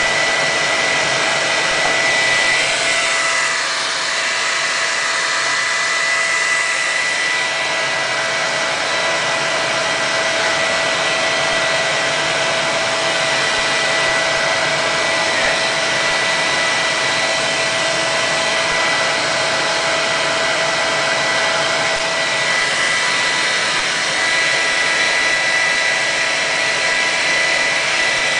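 Handheld hair dryer running steadily: a loud rush of air with a constant whine. It is heating a vinyl motorcycle sticker to soften the adhesive so the sticker can be peeled off. The sound dips and shifts briefly a few seconds in.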